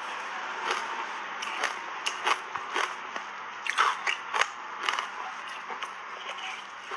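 Close-miked crunching of frozen shaved ice being bitten and chewed: irregular sharp crunches, thickest from about two to five seconds in.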